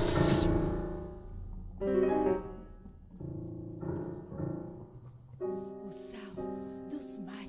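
Grand piano played in a contemporary piece: a loud chord rings and fades over the first second, then a string of separate, quieter chords and notes, each struck and left to ring. A few short hissing sounds come near the end.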